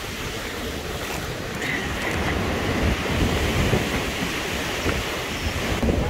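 Strong gusty wind rushing across the microphone with a low buffeting rumble, building slightly toward the end.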